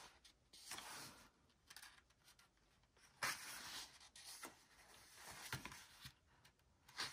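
Paper pages of a small notebook insert being turned by hand: a few soft rustles and flicks, the loudest about three seconds in.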